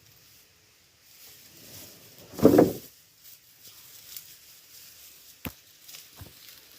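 Scattered knocks over a quiet background: a heavy thump about two and a half seconds in and a sharp click about five and a half seconds in.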